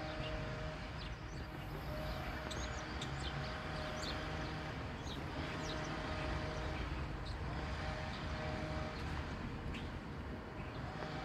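Distant Boeing 777-300ER climbing away after take-off: a steady low rumble from its GE90 turbofan engines with a faint hum over it. Small birds chirp now and then.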